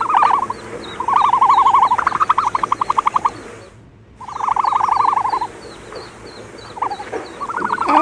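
Trilling animal calls, frog- or bird-like, come in repeated fast-pulsed bursts of about a second each, with faint high chirps behind them. The sound drops out briefly near the middle.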